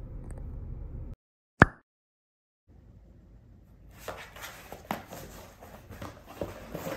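Low steady car-cabin road rumble that cuts off about a second in, followed half a second later by a single sharp click, the loudest sound here. After a short silence, a kitten claws and bites at a torn cardboard box, an irregular run of scratching, scraping and light knocks.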